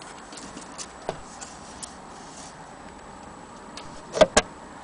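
Light, scattered clicks from a wooden wall clock case being handled, then two sharp knocks in quick succession near the end.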